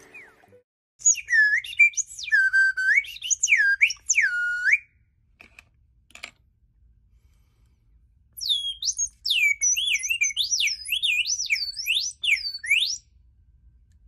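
Small metal slide (piston) whistle of the kind that gives a singing-bird automaton its voice, blown while its plunger moves in and out. It makes quick rising and falling whistled glides that imitate birdsong, in two runs of about four seconds each with a pause and two faint clicks between them.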